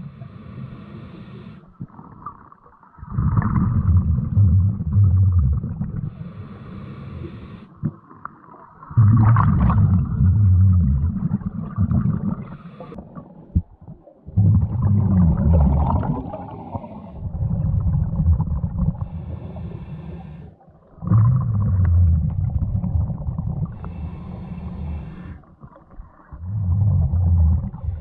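Scuba diver breathing through a regulator underwater: a short hiss on each inhale, then a longer low burble of exhaled bubbles, repeating about every six seconds.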